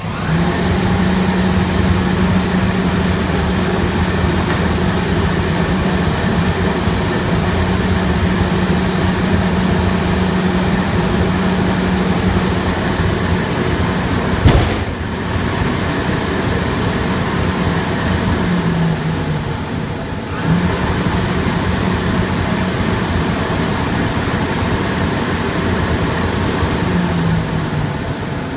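A machine running steadily, a loud low hum over a hiss. There is a sharp click about halfway through and another about two-thirds in.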